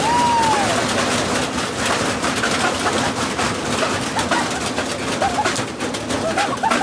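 Washing machine drum spinning with steel brake rotors loose inside: a dense, loud clatter of metal banging and rattling over a steady hum, with a short squeal falling in pitch at the start.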